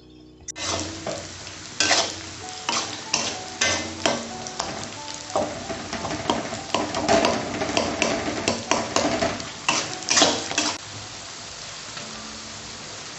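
Metal spatula scraping and knocking against a kadai while stirring a thick frying curry masala, which sizzles underneath. The stirring strokes stop about eleven seconds in, leaving a steady sizzle.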